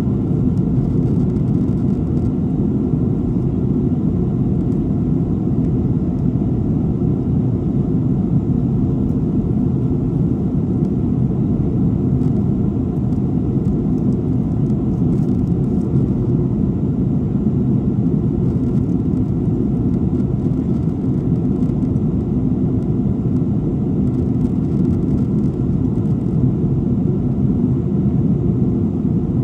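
Steady low rumble of an airliner in flight, the engine and airflow noise heard from inside the cabin, unchanging throughout.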